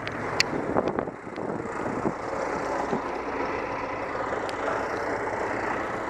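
Heavy truck's diesel engine idling steadily, with a few sharp clicks and knocks in the first second or so.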